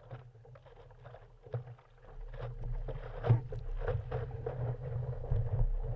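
Seawater slapping and splashing against a stand-up paddleboard as it is paddled hard, with repeated short knocks and splashes over a low rumble. It gets louder from about two seconds in as the board picks up speed.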